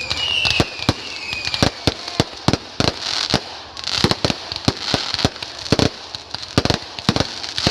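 Fireworks going off in quick succession: sharp firecracker-like bangs, irregular and about two a second. In the first second and a half a whistle slides slightly down in pitch, and later there are swells of crackling hiss.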